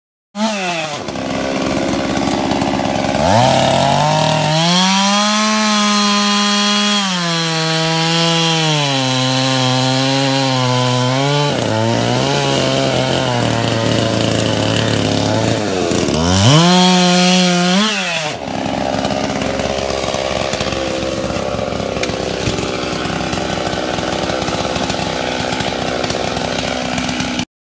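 Gas chainsaws cutting fallen tree trunks: one saw revs high, its pitch sinking and steadying as the chain works through the wood. It revs up again about two-thirds through and cuts off, and a rougher, noisier saw sound runs on after it.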